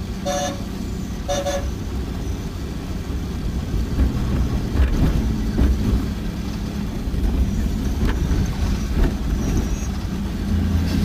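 Diesel truck engine running steadily with road noise, heard from inside the cab while driving. Two short horn honks sound about half a second and a second and a half in.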